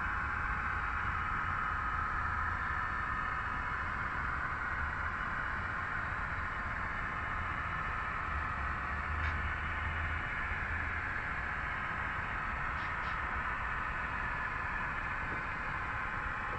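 HO-scale model freight train rolling along the track, heard from a camera riding in one of its cars: a steady rolling hiss and hum, with a few faint clicks in the second half.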